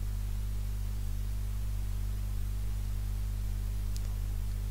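Steady low electrical hum with an even hiss beneath it, and one faint click about four seconds in.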